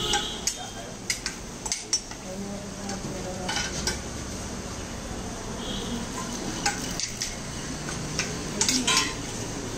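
Metal ladle clinking and scraping against stainless-steel serving plates and pots as dal is ladled out: irregular clinks, with a quick cluster near the end, over a steady background din.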